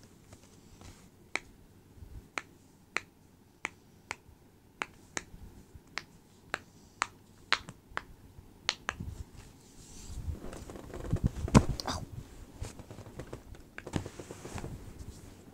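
Silicone pop-it fidget toy being pressed bubble by bubble: a run of sharp pops, about one or two a second, for the first nine seconds. From about ten seconds in there is rubbing and handling noise, with one loud bump.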